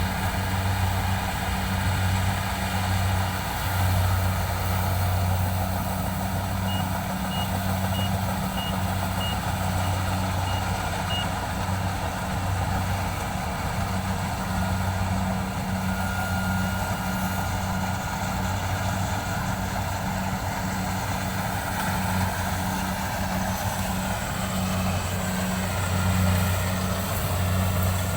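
An engine running steadily with a low, slightly pulsing hum, and a row of about eight short high beeps, roughly two a second, about a quarter of the way in.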